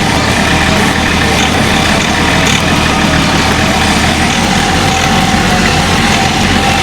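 Kioti CK3510 SE compact diesel tractor engine running steadily while the grapple moves logs.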